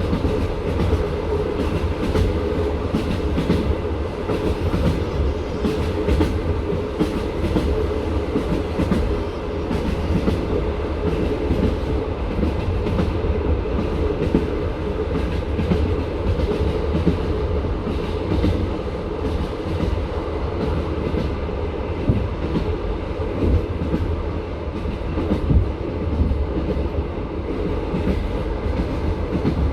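Passenger train carriage running at speed: a steady rumble with the irregular clickety-clack of the wheels knocking on the rails, heard from inside the car.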